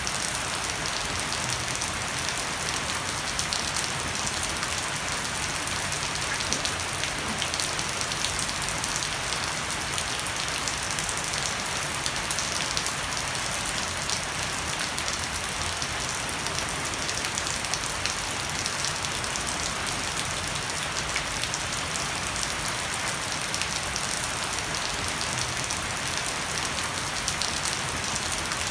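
Heavy rain falling steadily on a wooden deck and leafy shrubs, with water dripping off the edge of a thatched roof: a dense, even hiss scattered with fine drop taps.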